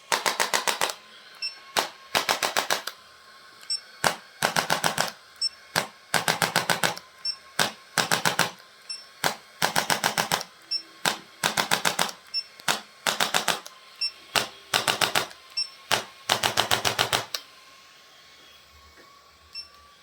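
Handheld chiropractic adjusting instrument firing rapid bursts of about eight clicks, each burst under a second long, repeated about every two seconds with a single click between bursts.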